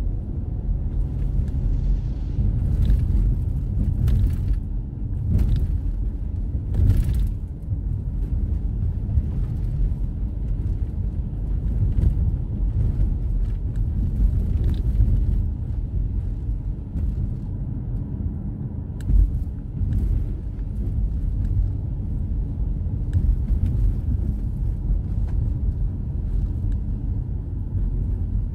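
Steady low rumble of a car's road and engine noise heard from inside the cabin while driving on wet pavement, with a few brief hisses, mostly in the first several seconds.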